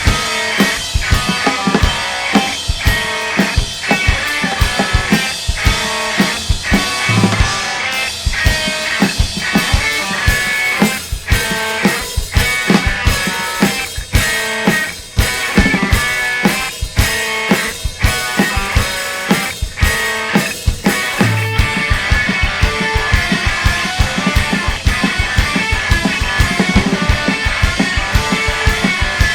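Rock band playing live with no vocals: drum kit keeping a steady beat under electric guitar and bass. About two-thirds of the way through the drumming gets busier and the sound fuller.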